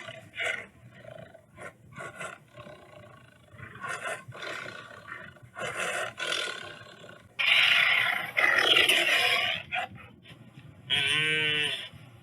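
Tiger roaring and snarling in several loud, rough bursts of one to two seconds each; the longest and loudest runs from about seven and a half to nearly ten seconds in, and a shorter, more tonal call comes near the end.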